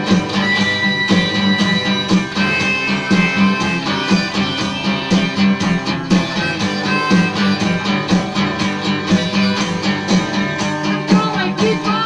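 Instrumental passage of a rockabilly song: guitar over a steady beat, with a couple of long held high notes in the first two seconds.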